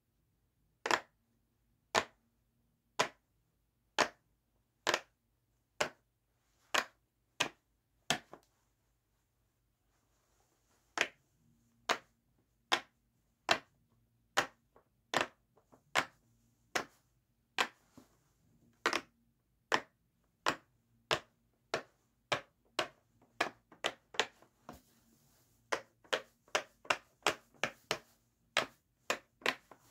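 Silicone pop-it push-bubble fidget toy being popped on its loud side, one bubble at a time, each press a sharp pop. About one pop a second at first, a pause of a few seconds about a third of the way in, then the pops speed up to two or three a second toward the end.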